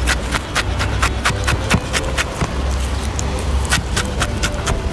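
Chef's knife finely chopping basil leaves on a wooden cutting board: quick, irregular knocks of the blade against the wood, several a second.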